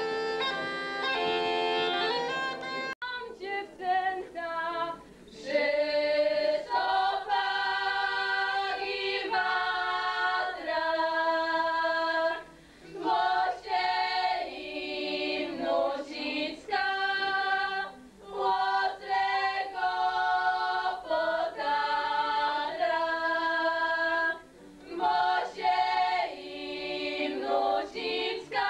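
Podhale highlander bagpipes (dudy) playing a steady-droned tune, cut off abruptly about three seconds in. After the cut, a women's folk vocal group sings a cappella in Polish highlander style, in phrases with short breaks between them.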